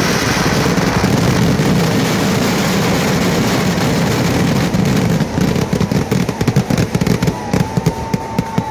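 Loud ground-fired firecracker barrage (Kerala vedikkettu), the explosions so close together for the first five seconds that they merge into one continuous crackling rumble. It then breaks into separate sharp bangs that come more and more sparsely.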